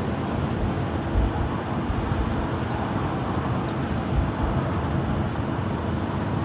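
Steady roar of jet aircraft engines, with a few brief low thumps of wind on the microphone.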